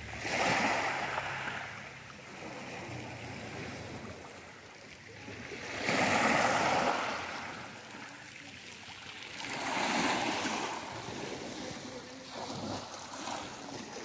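Small sea waves breaking and washing onto the shore, swelling three times about four seconds apart.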